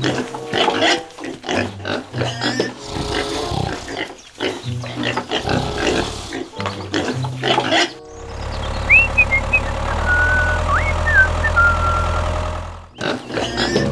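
Pigs squealing and grunting over background music. About eight seconds in, the calls give way to a steady low hum with a few high whistling glides, which stops shortly before the end.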